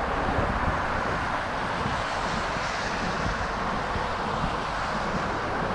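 Steady rushing outdoor noise: road traffic mixed with wind on the microphone.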